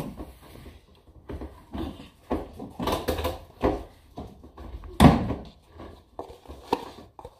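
Scattered knocks and bumps of things being handled around a kitchen, such as cupboard doors; the loudest knock comes about five seconds in.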